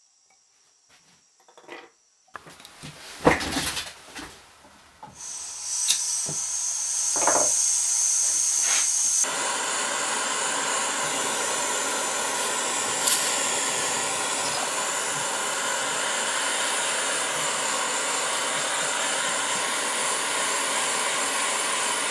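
A few knocks and clicks, then a high hiss, then from about nine seconds a steady rushing of a small gas torch flame heating silver for soldering.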